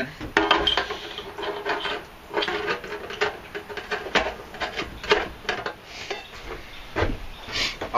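Irregular metal clicks, taps and scraping as a steel EMT conduit connector is worked into a hole drilled in the side of a sheet-steel box.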